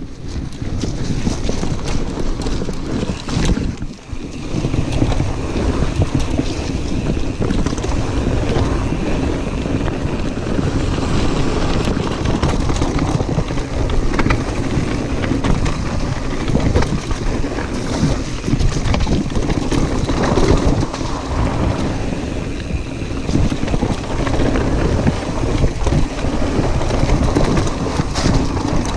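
Wind buffeting an action camera's microphone as a Santa Cruz Heckler mountain bike descends a dirt trail at speed, with a steady low rumble of tyres on dirt and many small rattles and knocks from the bike over bumps.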